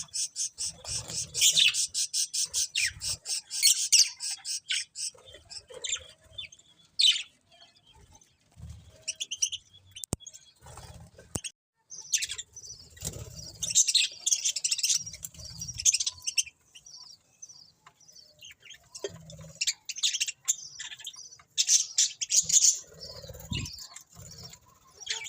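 Budgerigars chirping and chattering in rapid bursts, with short pauses between bouts.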